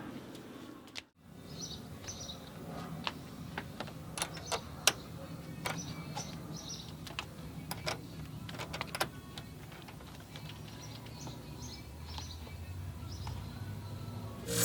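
Faint, sparse clicks and taps of wiring being handled and fed through a car's interior, over a low steady background hum, with faint bird chirps.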